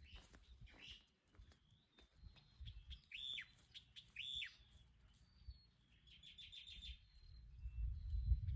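Small birds chirping: two sharp calls that sweep downward, about a second apart, then a quick run of short high notes. A low rumble builds near the end.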